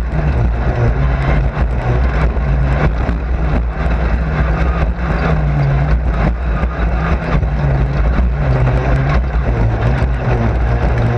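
Race car engine heard from inside the car at racing speed, its note rising and falling every few seconds as the driver accelerates and lifts. Frequent knocks and rattles run throughout.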